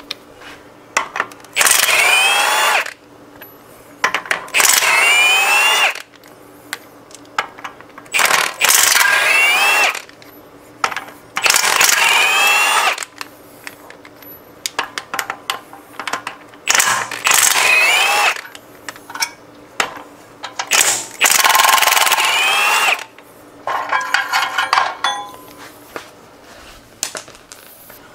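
Cordless impact wrench running the flex plate (flywheel) bolts out of a 351 Cleveland V8, one bolt at a time: six bursts of a second or so each, the motor whine rising as it spins up and dropping as it stops. Small clicks and metal rattles between bursts and near the end as bolts and socket are handled.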